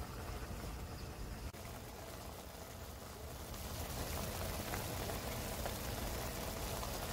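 Steady hiss of rain pattering, mixed with ramen broth simmering in a stainless pot on a portable gas stove. The hiss grows brighter and louder about three and a half seconds in.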